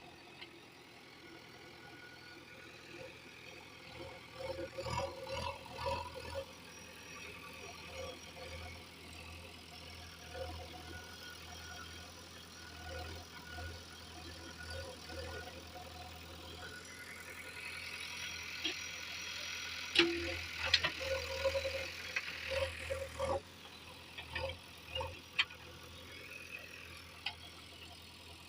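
Heavy diesel engine of a working backhoe loader running steadily, with clusters of clattering knocks about five seconds in. A louder spell with sharp clanks comes around twenty seconds in.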